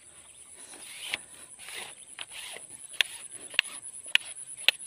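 A hooked climbing perch splashing and being dragged out of the water, with soft swishes of water and weeds, over a steady high-pitched insect drone. In the second half comes a run of sharp clicks, about two a second.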